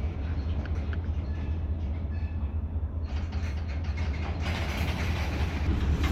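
Freight train in a rail yard: a steady low diesel rumble, with rail-car noise growing louder about four seconds in as the cut of cars starts rolling backward.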